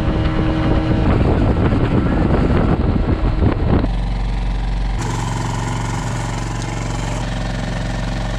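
Outboard-powered fishing boat running across a lake, its engine drone mixed with rushing, splashing water off the hull. About four seconds in this cuts abruptly to a steadier, lower outboard hum at slow trolling speed.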